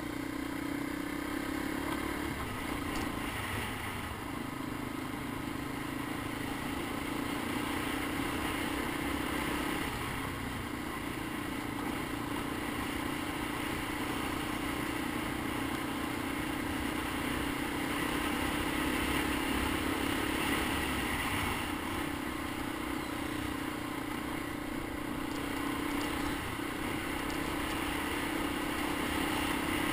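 Honda ATC 250ES Big Red three-wheeler's four-stroke single-cylinder engine running steadily under way on its freshly rebuilt carburetor. The engine pitch dips and rises a little now and then with the throttle, over a steady rush of wind and tyre noise.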